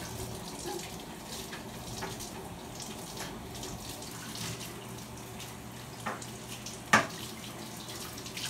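Tap water running steadily into a utility sink as an inflatable lifejacket is rinsed under the faucet. A sharp knock about seven seconds in, with a smaller one just before it.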